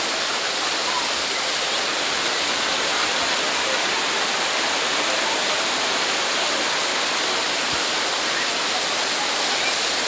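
Waterfall pouring over rock: a steady, loud rush of falling water.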